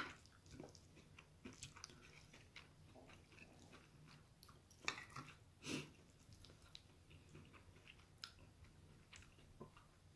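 Faint close sounds of eating: a metal spoon clicking and scraping on the plate while scooping cheese kimchi fried rice, and chewing, with a few louder sounds about five and six seconds in.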